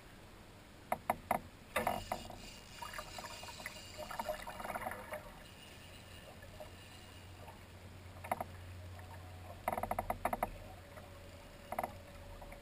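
Scattered sharp clicks and short rattling runs of clicks from a fishing reel and tackle being worked while a big salmon pulls against the line, over a low steady rumble. A faint steady hum comes in near the end.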